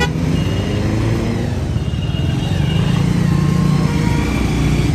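Bajaj Pulsar 150 motorcycle's single-cylinder engine running on the move, a steady low drone, amid road traffic.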